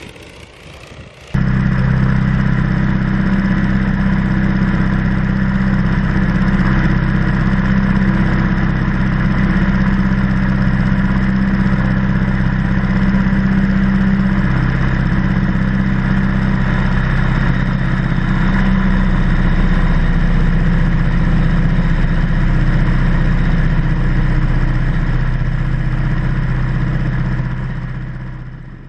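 Verner Scarlett 5Si five-cylinder radial engine running steadily in flight, heard loud and close from a camera mounted on the biplane's wing. It cuts in abruptly about a second in after a quieter start and fades out near the end.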